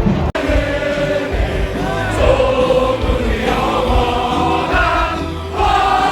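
A group of voices singing together, cut off abruptly about a third of a second in, then carrying on.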